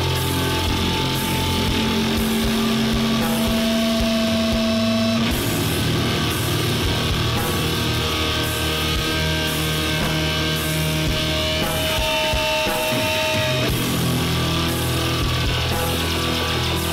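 Powerviolence/hardcore band recording: distorted electric guitar and bass holding long, heavy notes over drums, with a steady repeating cymbal pattern.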